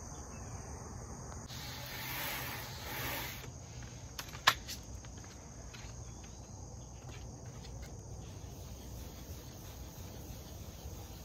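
Steady high-pitched chorus of insects. A brief rushing noise comes about two seconds in, and a single sharp click about four and a half seconds in.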